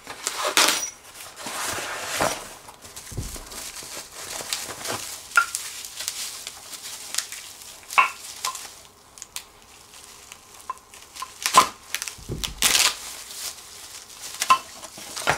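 A knife slitting packing tape on a cardboard box, then the cardboard flaps and bubble-wrapped chair legs being handled: crinkling plastic and cardboard rustles with scattered sharp clicks and scrapes.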